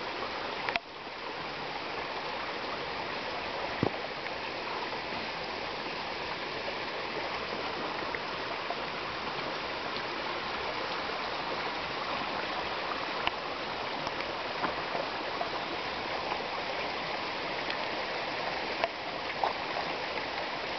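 Steady rushing of flowing water from a stream, with a brief dip in level about a second in.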